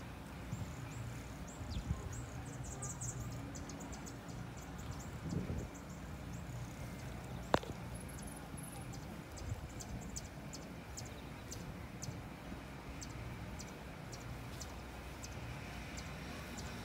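Cattle grazing in tall grass outdoors: a steady low rumble with faint, irregular high ticks and chirps, and one sharp click about halfway through.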